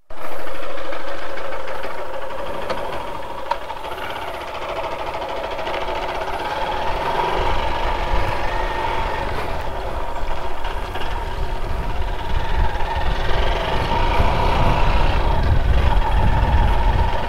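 Motorcycle engine running steadily, with a low rumble growing stronger about seven seconds in.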